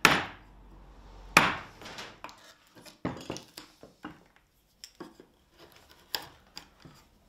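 Wooden-handled chisel struck with a soft-faced mallet while chopping a mortise by hand: two sharp knocks in the first second and a half, then lighter clicks and taps as the chisel pries the wood chips out of the mortise.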